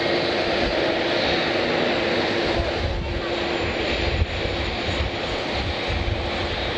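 Airliner engines running: a steady, loud noise with a few held tones over an uneven low rumble.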